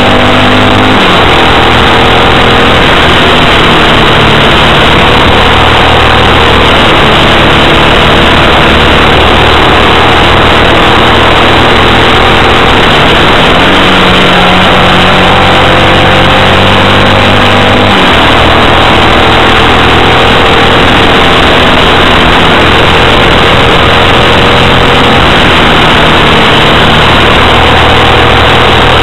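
Yamaha XT motorcycle engine pulling hard at speed, its note rising and stepping down at several gear changes, under heavy wind noise on the microphone.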